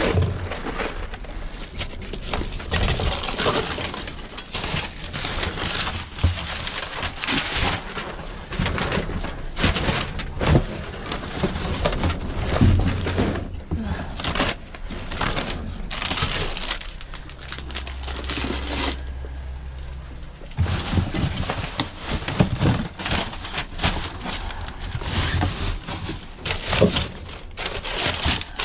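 Hands rummaging through dumpster trash: plastic wrap, paper and cardboard rustling, crinkling and clattering as they are pushed aside and lifted. A low steady hum joins in for about three seconds past the middle.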